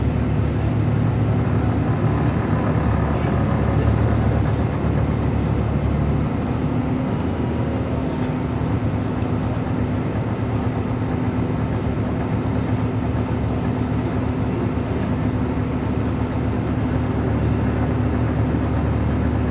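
Inside a 2012 Gillig Advantage transit bus under way: the Cummins ISL9 diesel and Voith automatic transmission running steadily with a low drone, joined about six seconds in by a steady higher whine.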